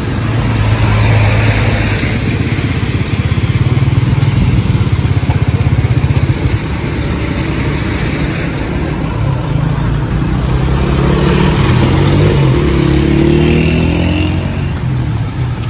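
Tractor engine running close by with a steady low throb; from about ten seconds in its pitch rises as it speeds up.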